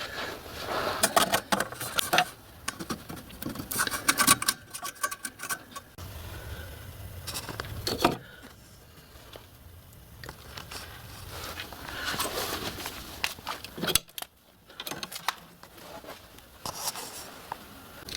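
Irregular clinks, rattles and scrapes of metal parts and hand tools being handled during fitting work, with short pauses between bursts.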